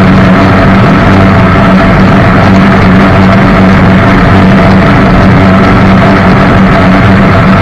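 Jet boat engine running at a steady speed, a constant loud drone that holds the same pitch throughout.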